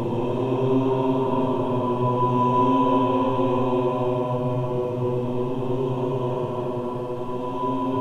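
Humanoid creature's howl sound effect: one long, low, droning call held on a nearly steady pitch without a break.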